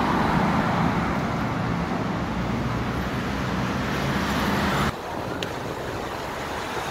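Steady road traffic noise from cars on the avenue beside the bike path, dropping a little in level with a cut about five seconds in.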